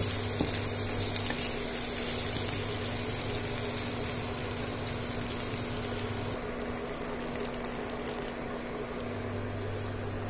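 Spiced dry fish sizzling as it fries in a pan, with a steady low hum underneath. About six seconds in the high hiss cuts off sharply, leaving the quieter bubbling of the curry simmering in water.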